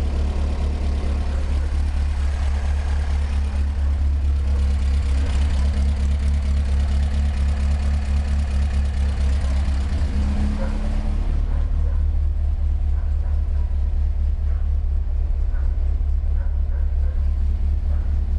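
Air-cooled Volkswagen flat-four engine running steadily at idle, with the strange light tapping, likened to a drummer's drumsticks, that comes from its right side and that the owner cannot diagnose.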